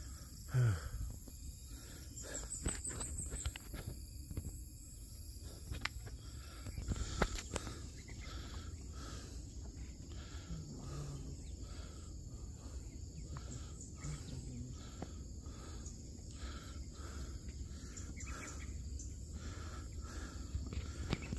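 Insects keeping up a steady high buzz, with soft regular footfalls, about two a second, from about eight seconds in.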